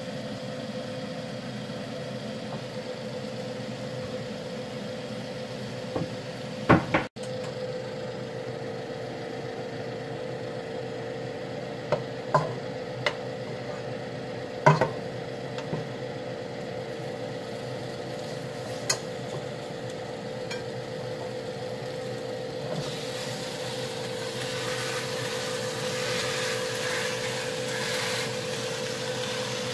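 Lamb pieces searing in a hot pot: a sizzling hiss starts about two-thirds of the way in and grows. Before that, tongs clink sharply against the pot several times, over a steady hum.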